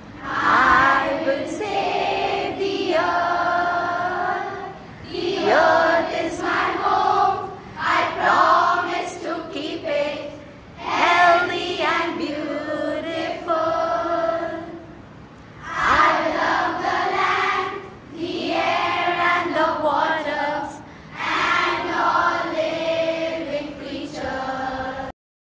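A girls' choir singing together in short phrases with brief pauses between them; the singing cuts off abruptly just before the end.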